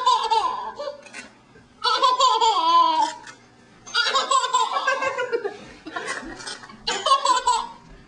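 Baby laughing in four bursts about a second long each, high-pitched giggles and squeals with short pauses between.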